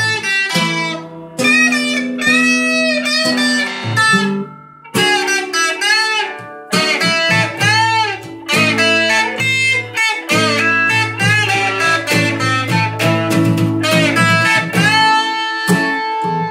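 An acoustic guitar and an electric guitar improvise a blues together: chords underneath a lead line with notes bent up and back down.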